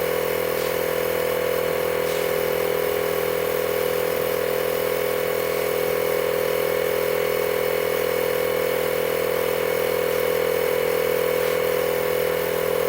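Portable 12-volt tyre inflator (air compressor) powered from the car's socket, running steadily with an even, unchanging motor hum while it pumps air into a car tyre.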